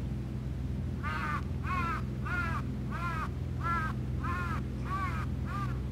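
A crow cawing eight times in a steady run, about one and a half caws a second, over a steady low hum.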